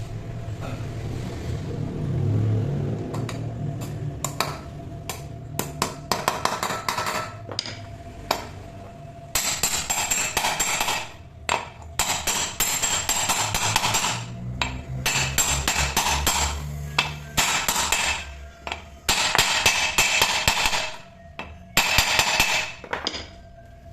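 Metalworking on an engine part: sharp metal knocks and taps, then repeated rasping bursts of a second or two each with short pauses between, over a faint steady hum.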